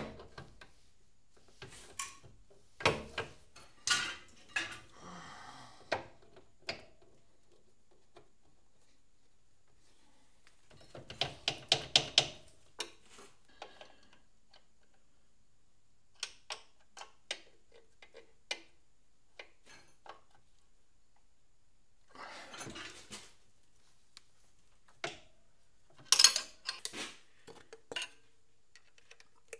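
Metal hand tools clinking and knocking against a lathe's drive pulleys and shaft as set screws are worked and the drive is reassembled. Scattered sharp clicks and clanks, with a quick run of about eight clicks about eleven seconds in and a louder cluster near the end.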